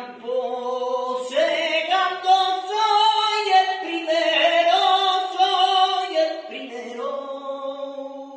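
Male flamenco singer singing an unaccompanied phrase of long, held notes, the voice bending and sliding between pitches in ornamented runs.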